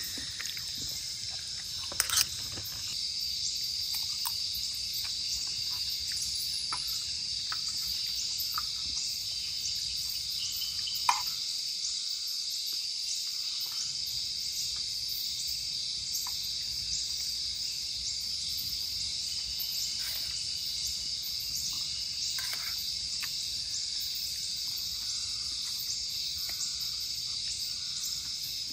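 Night-time insect chorus: a steady high-pitched buzz with a regular chirp about twice a second. A few sharp clinks of a spoon on metal camping dishes stand out, two about two seconds in and one near the middle.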